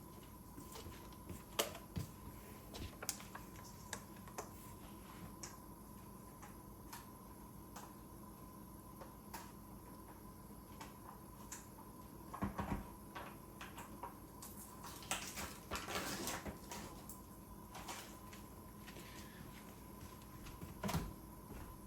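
Kitchen handling sounds while seasonings are spooned into the pot: scattered light clicks and taps of spoons and containers, with a few short bursts of clatter, over a faint steady hum.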